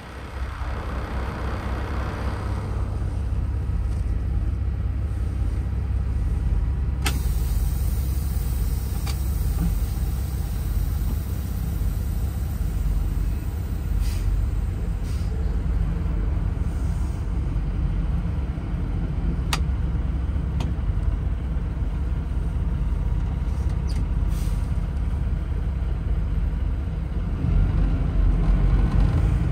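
Kenworth T680 semi truck's diesel engine idling, heard from inside the cab: a steady low rumble, with a few sharp clicks over it.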